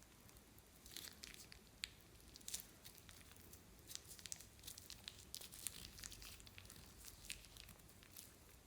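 Faint, irregular sticky crackles and clicks from clear slime and plastic piping bags being handled, starting about a second in and stopping near the end.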